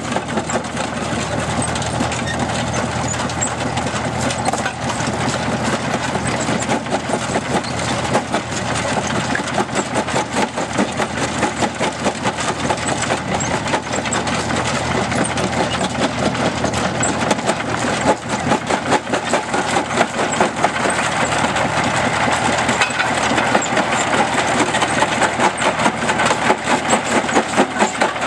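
Belt-driven antique rock crusher running under the power of a Farmall tractor engine: a steady engine drone with a fast, even knocking from the machine. The knocking grows stronger in the second half.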